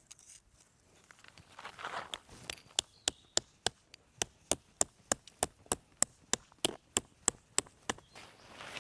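A run of sharp, evenly spaced clicks, about three a second, lasting some five seconds, with a few softer knocks before them.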